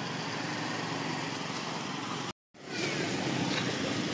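Steady outdoor background noise, like distant traffic or machinery, that cuts out completely for a moment a little over two seconds in and then resumes.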